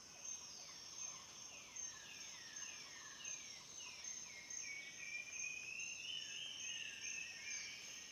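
Birds singing over a steady, high-pitched insect drone. One bird repeats short whistled notes that slide downward, several a second, and a longer wavering phrase comes in about halfway through.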